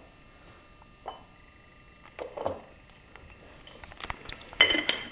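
A few soft knocks, then metal cutlery and dishes clinking and clattering, louder near the end.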